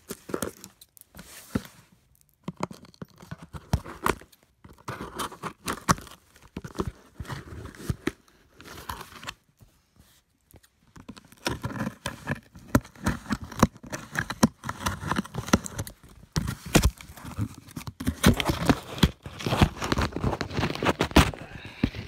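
Cardboard parcel being cut open with scissors and its paper pulled out and crinkled: irregular rustling, snipping and tearing, with a short lull about ten seconds in and busier handling after it.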